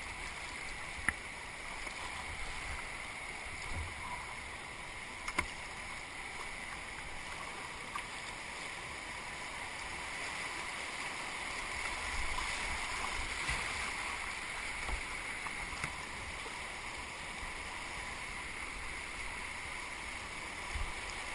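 Rushing floodwater of a swollen river heard from a kayak running its rapids: a steady hiss of moving water with a low rumble, and two sharp knocks about one and five seconds in.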